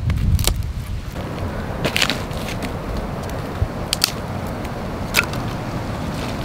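Dry firewood being handled: a steady crunching rustle broken by several sharp snaps and cracks of thin sticks.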